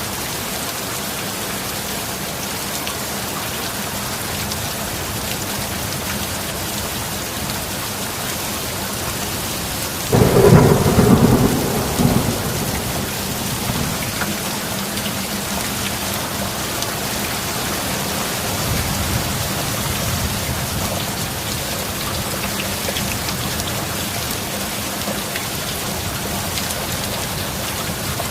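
Steady heavy rain, with a sudden loud clap of thunder about ten seconds in that rumbles away over a few seconds. A fainter low rumble of thunder follows later.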